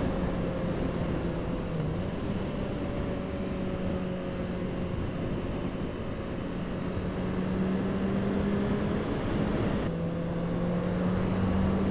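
Honda CB650F's inline-four engine running steadily under way, heard from the rider's position over steady wind and road noise. The engine note sags a little in the middle and climbs again toward the end.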